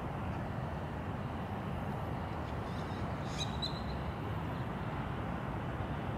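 Steady low outdoor background rumble, with a short high bird chirp about three and a half seconds in.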